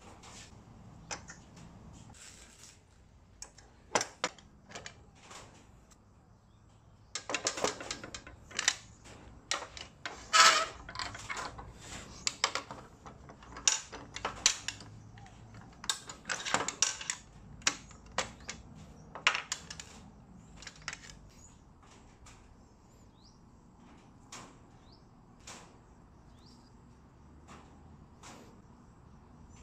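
Wooden test blocks and metal bar clamps being handled on a steel workbench as the clamp screw is turned: a run of scattered clicks and knocks. They are thickest from about a quarter to two-thirds of the way through, with the sharpest knock about a third in.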